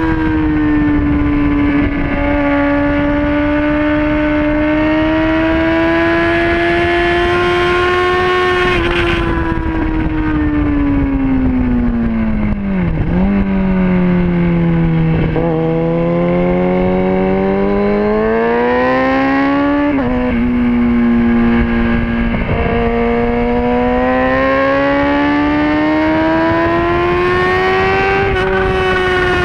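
Racing motorcycle engine heard from onboard at high revs, with wind rushing past. About a third of the way in the revs fall away for a few seconds as the bike brakes and downshifts for a corner, then climb again hard. Each upshift makes a brief drop in pitch.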